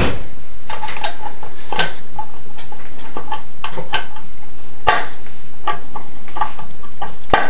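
A screwdriver working a screw out of a small two-stroke engine: irregular metal clicks and scrapes, with short high squeaks between them.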